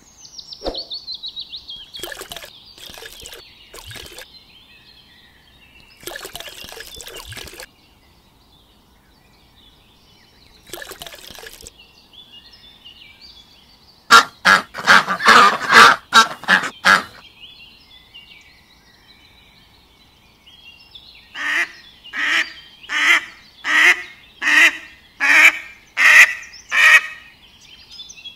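Duck quacking: a loud burst of rapid calls in the middle, then a series of about ten evenly spaced quacks, roughly one every 0.6 seconds, near the end. Scattered short, fainter sounds come before them.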